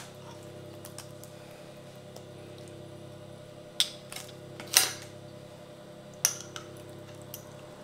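A kitchen utensil clinks and taps a handful of times against a jar and the pizza while pepper-and-oil bruschetta mix is spooned out, all in the second half. Under it runs a steady low hum.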